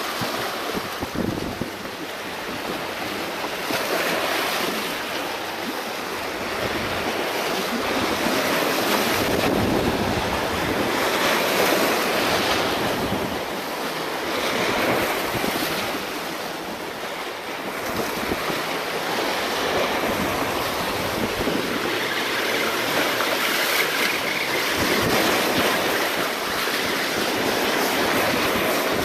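Small waves washing and breaking over a rocky breakwater, the surf swelling and easing every few seconds, with wind buffeting the microphone.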